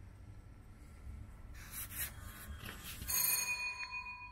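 A faint low rumble with a couple of brief rustles, then about three seconds in a steady, high ringing tone with several pitches starts, cutting off near the end.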